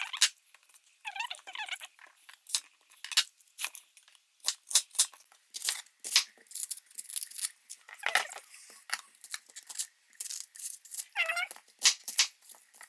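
Kitchen knife cutting through onions on a cutting board: a run of crisp, irregular cuts with a few short squeaks.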